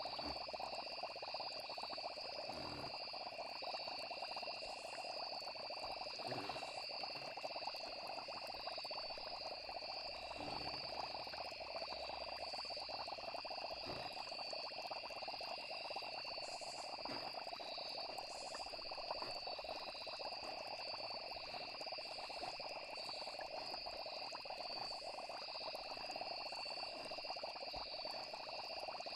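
Night chorus of crickets and frogs: steady high insect trilling over a dense frog chorus, with a few soft low pops now and then.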